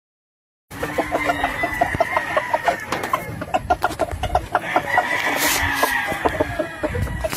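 Silence for the first split second, then gamefowl clucking: a Lacy Roundhead rooster and hens giving a rapid run of short clucks, with a longer call about the middle.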